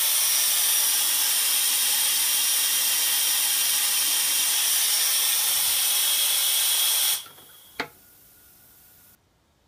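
Pratt & Whitney ST6L-73 twin-shaft gas turbine APU running: a loud, steady rush of air with high whines running through it. It cuts off suddenly about seven seconds in, and a single click and a faint hum follow.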